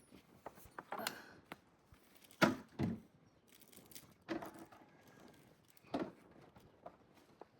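Hands handling small plumbing fittings and thread-seal tape: a few scattered clicks, clinks and rustles, loudest about two and a half and three seconds in.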